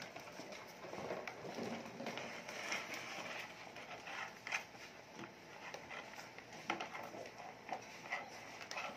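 German Shepherd puppies eating together from plastic bowls: irregular chewing and lapping with many small clicks and taps, and sharper knocks about four and a half seconds in and again near seven seconds.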